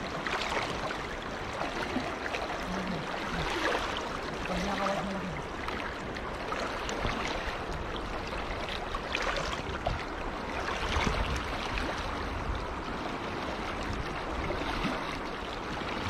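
River water flowing and splashing around a person wading waist-deep while working a fishing net.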